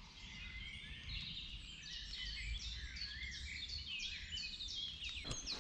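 Woodland bird singing a long run of short, high, downward-sweeping notes, about three a second, over a faint low rumble.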